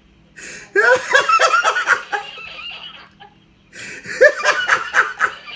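Laughter in two bouts, one starting about a second in and another near the end, each a quick run of high-pitched ha-ha pulses.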